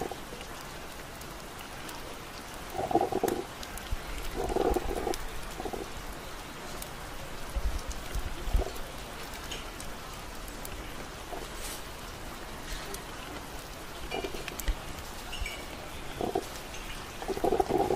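Steady rain falling, with short muffled sounds breaking in several times.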